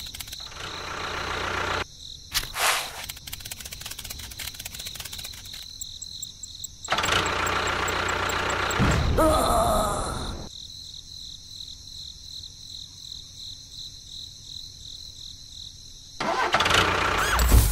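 Engine noise in several separate, abruptly cut stretches, typical of an engine being started. There is a short burst at the start, a louder stretch about seven seconds in that drops in pitch before it stops, and another loud stretch near the end.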